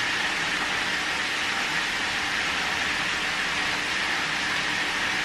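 Steady kitchen background noise: an even hiss with a faint hum under it, unchanging throughout.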